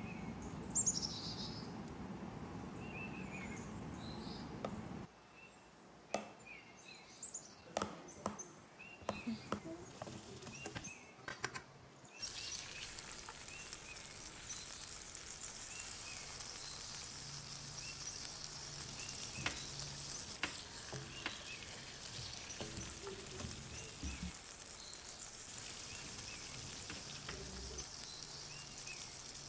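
Food sizzling in a hot pan, a steady hiss that starts about twelve seconds in, after a run of sharp clicks and knocks of kitchen utensils. Birds chirp faintly in the background.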